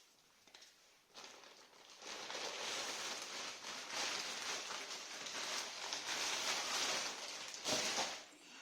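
Packaging rustling and crinkling as it is handled and opened, starting about a second in and continuing with a brief drop near the end.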